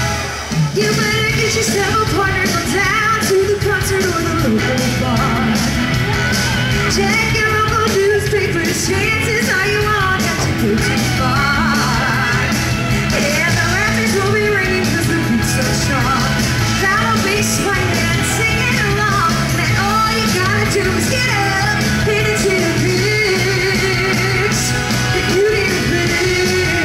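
Live singers on handheld microphones performing rock music over a full band sound, amplified through the venue's PA. The music dips briefly right at the start, then carries on without a break.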